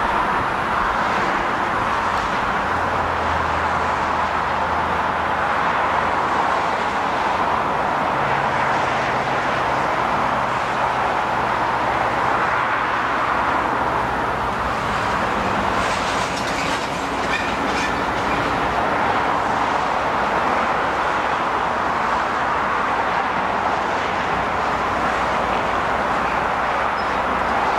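Freight train of coal hopper cars rolling past: a steady rolling noise of steel wheels on rail, with a few faint low hums coming and going.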